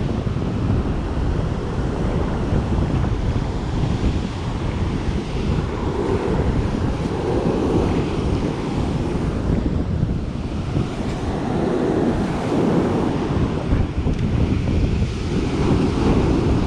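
Wind buffeting the microphone over the continuous wash of breaking ocean surf, with waves swelling and falling every few seconds.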